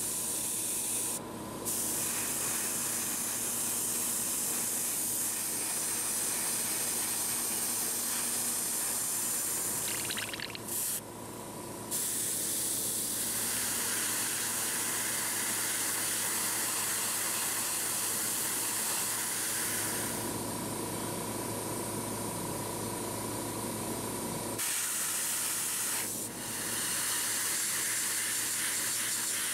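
Airbrush spraying acrylic paint onto a miniature: a steady hiss of air and paint, stopping briefly a few times.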